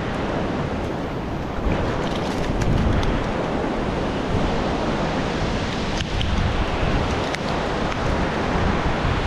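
Shallow surf washing up and back over a sandy beach, with wind noise on the microphone.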